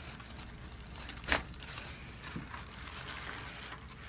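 Faint rustling and crinkling of a patient shifting on a chiropractic treatment table, with one short sharp noise about a second in.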